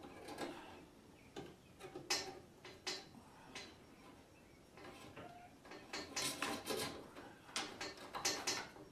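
Hands handling thin bell wires and pressing them into the plastic push-in terminals on the back of a garage door opener head unit: a string of short, light clicks and rustles, sparse at first and bunched more closely in the last three seconds.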